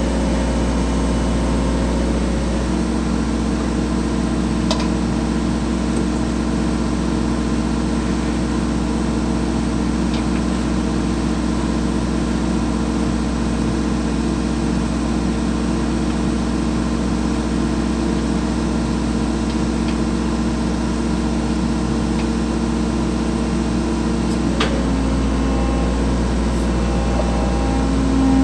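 Hydraulic excavator's diesel engine running steadily, heard from inside the operator's cab, with a few faint clicks. Near the end the engine grows louder as the bucket takes up the load of drain covers on a lifting strap.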